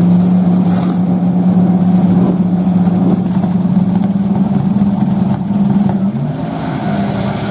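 Drag-race car engines held at steady revs on the starting line, a constant drone, then the pitch breaking and climbing as the cars launch about six seconds in.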